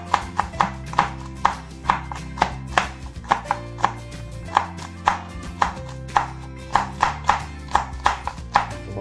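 Chef's knife chopping green chili on a bamboo cutting board: a steady run of sharp knocks, about three a second, over background music.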